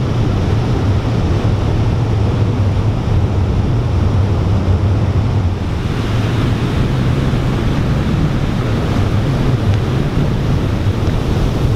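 Heavy ocean surf breaking on the beach: a steady, loud rush of waves with a low rumble of wind on the microphone. From about six seconds in, the hiss of foamy wash running up the sand comes forward.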